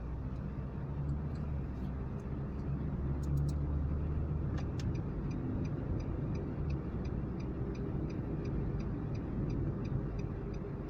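Car interior driving noise: a steady low engine and road rumble. From about five seconds in, a turn-signal indicator ticks steadily, about three clicks a second.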